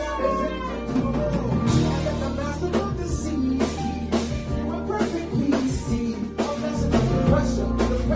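A live band playing in a small rehearsal room: a drum kit keeps a steady beat under an electric bass line, with a voice singing into a microphone.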